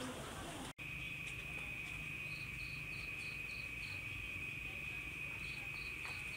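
Night insects chirping: a steady high cricket trill, with a second insect adding short, even chirps about three a second in two runs. The sound starts after a brief break in the audio just under a second in.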